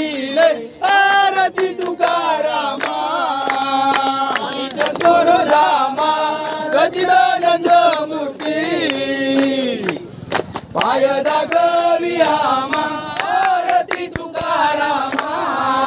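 A crowd of devotees singing a Ganesh aarti together, many voices in unison, with hands clapping along in time.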